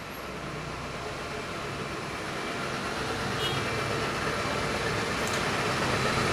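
Ecovacs Deebot T9 robot vacuum running, its suction motor and brushes making a steady hum and whir as it sweeps up small paper scraps, growing steadily louder.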